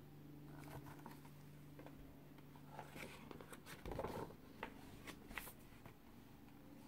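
Faint rustling and soft clicks of a hardcover picture book's pages being turned and handled, the loudest turn about four seconds in, over a low steady hum.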